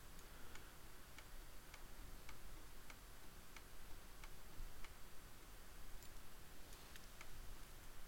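Faint ticking clicks, fairly evenly spaced at just under two a second at first and then more irregular, over low background hiss.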